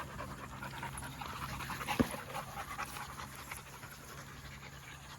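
Young American Bully dogs panting hard after exercise as they catch their breath, with a single sharp click about two seconds in.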